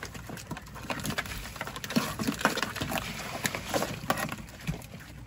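Hands in cotton work gloves sorting through a wet pile of net catch mixed with leaves and plastic bags: rustling and crinkling with many small, irregular clicks and taps.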